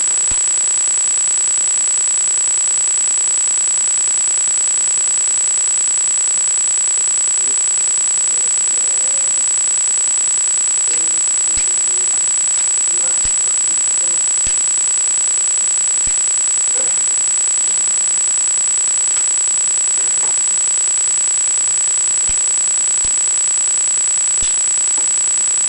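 A steady high-pitched whine over a constant hiss, unchanging throughout and the loudest thing present. Beneath it come a few faint, scattered clicks and knocks as the aluminium legs of a SLIK F740 tripod are handled and adjusted.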